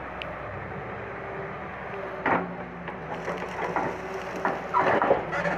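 Hyundai crawler excavator's engine running steadily while its bucket works through soil and dry brush. From about two seconds in there is a string of sharp cracks, snaps and knocks, the loudest near the end.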